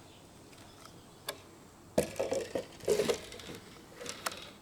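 Plastic parts of the fuel pump assembly clicking and rattling as the pump is fitted into its housing: a light click about a second in, a cluster of sharp clicks and rattles from about two to three seconds, and one more sharp click near the end.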